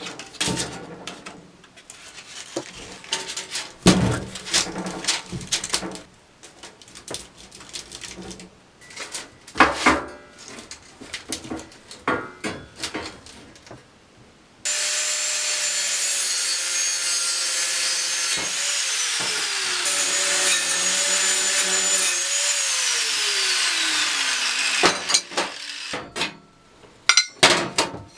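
Parts and tools being handled with scattered knocks and clatter, then about halfway through a power tool runs loud and steady for some ten seconds, its pitch sagging twice near the end of the run, followed by more knocks.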